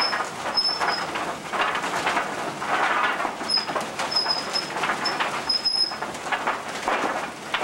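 Wooden black-powder mill running: its brass wheels roll in a wooden trough and its wooden lantern-gear teeth mesh, giving an uneven rattling clatter with short, high squeaks now and then.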